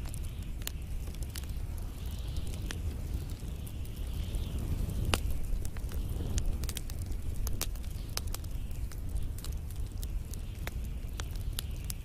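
Wood and pine-cone fire crackling: sharp pops scattered irregularly over a low, steady rumble of flames, with one louder pop about five seconds in.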